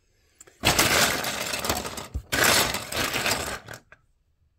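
Loose plastic Lego bricks clattering and rattling as a hand rummages through a cardboard box full of them, in two spells of about a second and a half each with a brief break between.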